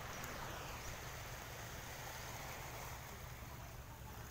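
Steady beach ambience: a hiss of wind and gentle surf, with low wind rumble on the microphone.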